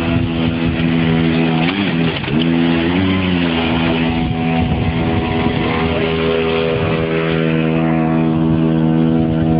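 Small engine of a motorized wheelbarrow running steadily, its pitch dipping and coming back briefly about two and three seconds in.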